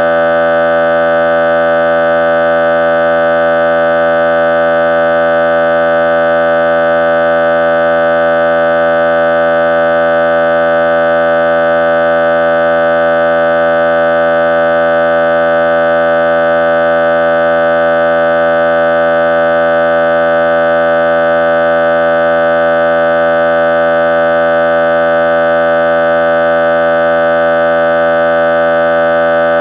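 A loud, steady buzzing tone with many overtones, unchanging in pitch and loudness throughout.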